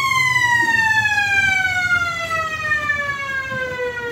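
A siren winding down: one long tone that falls slowly and steadily in pitch.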